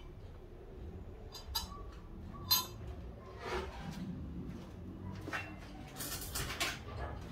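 Metal objects clinking and knocking together as they are handled: a few separate light clinks, the sharpest about two and a half seconds in, followed by rougher scraping and rattling near the end.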